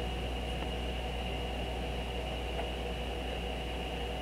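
Steady background hum and hiss with a faint, constant high whine: room tone, with no distinct event.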